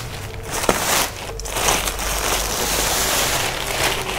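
Black plastic bag and woven plastic sack rustling and crinkling as a large bale is pulled and handled.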